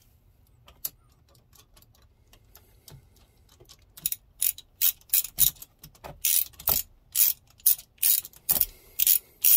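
Hand socket ratchet clicking as it runs a bolt down into an engine cap. Faint scattered clicks at first, then from about four seconds in, loud quick strokes of ratchet clicks, roughly three a second.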